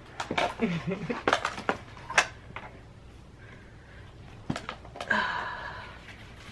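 A hard-shell portable photo-studio carry case being handled by its handle: a run of clicks and knocks, a sharp click about two seconds in, a thump about four and a half seconds in, then a short rustling rush.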